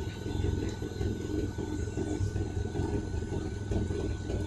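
Renault Mégane II engine idling roughly with an uneven, bouncing pulse: a misfire, which the owner suspects comes from the spark plugs.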